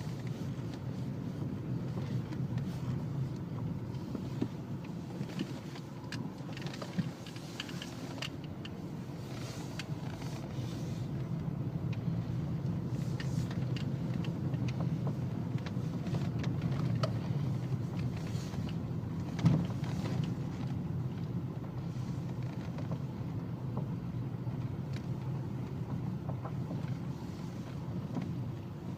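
Volkswagen Golf IV running with a steady low rumble and irregular short knocks, one sharp, louder knock about two-thirds of the way through: the knocking fault the car is being recorded for.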